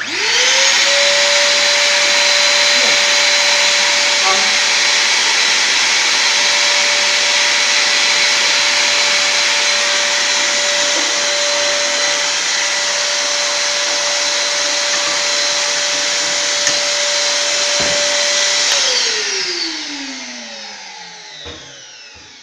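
Vacuum cleaner drawing air through a fireplace ash cyclone: it is switched on and runs steadily with a constant whine, then is switched off about nineteen seconds in and winds down, its pitch falling away.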